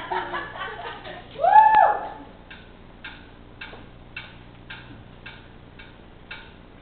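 A performer making the ticking noise with the mouth, short even ticks about two a second. Before the ticks begin there is a loud voiced call that rises and falls in pitch, about a second and a half in.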